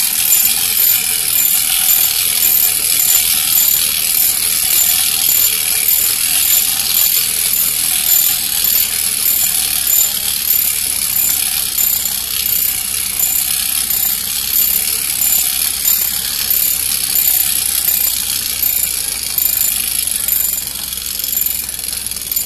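Clockwork motor of a wind-up tin toy tricycle running after release: a steady mechanical gear whirr with a high click repeating at an even pace. It starts suddenly as the toy is let go and grows a little quieter near the end.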